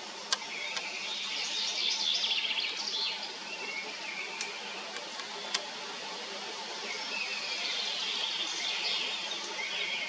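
Small birds singing: two dense, twittering bursts of high-pitched song, one between about one and three seconds in and another from about seven seconds on, over a steady outdoor hiss. A few sharp clicks fall between them.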